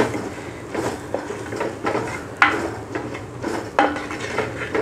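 A spatula scraping and knocking against an earthenware clay pot while onions and ground spices are stirred together. The scrapes are irregular, with a few sharper knocks.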